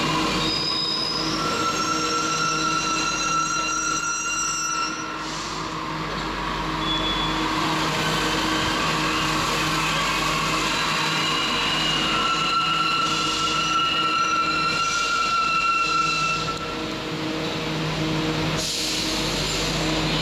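Santiago Metro Line 2 train moving through the station: a steady running rumble with several high whining tones that come and go.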